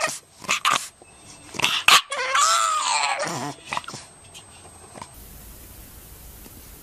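A dog whining: one drawn-out call that rises and then falls away in pitch, about two to three and a half seconds in, after a few short sharp sounds. A faint steady hiss takes over about five seconds in.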